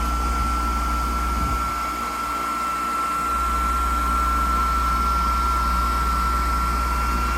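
Steady whirring of an electric blower with a constant high whine, while the frosted-up coil of a window air conditioner running as a heat pump is being defrosted. A low rumble underneath drops away for about a second and a half a couple of seconds in, then returns.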